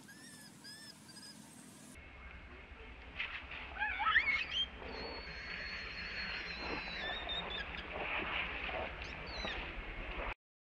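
Infant macaque crying in distress: loud, wavering, rising squeals, then one long thin high squeal held for about two seconds, and a few short cries near the end. Soft repeated chirps come in the first two seconds.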